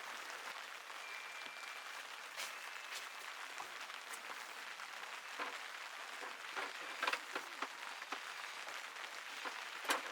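Steady rain, an even hiss with scattered sharper taps of heavier drops, the taps coming more often in the second half.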